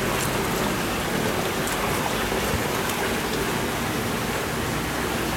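Steady rushing water noise from a large saltwater fish tank's circulation and aeration, with a few faint ticks.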